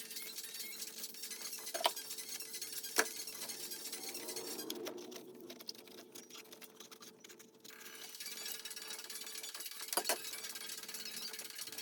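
Hand tools clinking a few times on metal engine parts, with the loudest sharp clinks about 3 seconds in and near the end, over a steady hiss and a faint hum.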